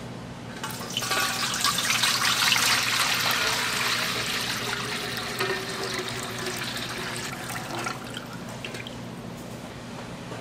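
Water running and splashing, starting about a second in, strongest early on and tapering off after several seconds, over a steady low machinery hum.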